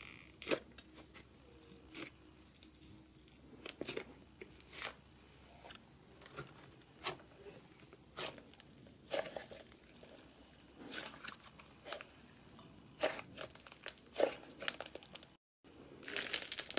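Soft butter slime being poked, stretched and pressed by hand: quiet sticky clicks and crackles at irregular spacing, becoming denser and louder in the last second or so.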